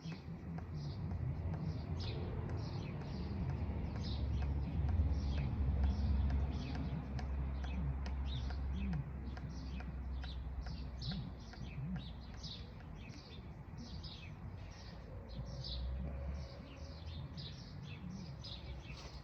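Birds chirping rapidly and repeatedly, about two chirps a second, over a steady low rumble.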